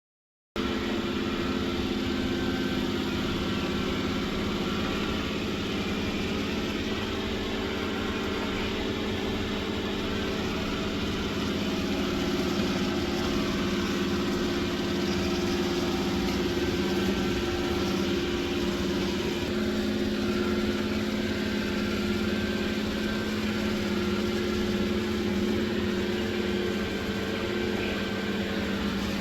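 Dreame D10S Plus robot vacuum running with its suction motor on, a steady hum with a few held tones, as it picks up fingernail clippings and tissue paper. It starts abruptly about half a second in.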